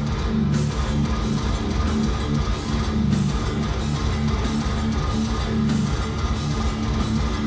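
Metal band playing live, recorded from the crowd: electric guitars and bass hold heavy low notes over drums with regular cymbal hits.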